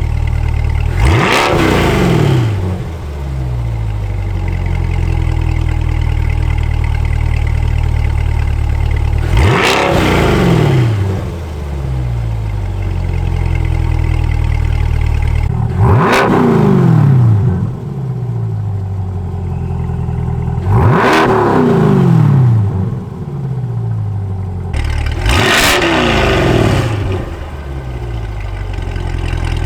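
C8 Corvette's 6.2-litre V8 idling and being free-revved five times, each blip rising sharply in pitch and falling back to idle.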